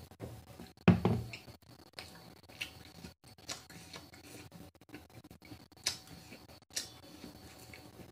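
Close-up eating sounds: a thump about a second in as a plastic tumbler is set down on the table, then quiet chewing with a few sharp mouth clicks and smacks.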